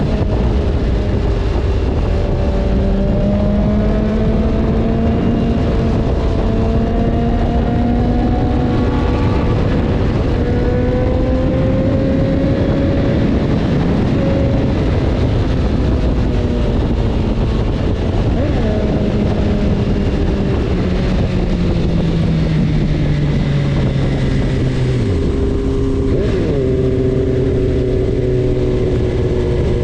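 BMW S1000RR inline-four engine under way, its note slowly rising and falling with the throttle. About 25 seconds in the pitch drops sharply and then jumps back up, like a gear change. Heavy wind rush on the microphone.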